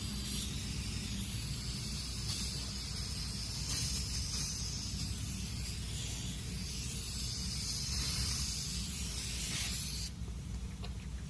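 Compressed air hissing steadily while a tire is inflated to seat its bead on the rim, cutting off suddenly about a second before the end. A steady low rumble runs underneath.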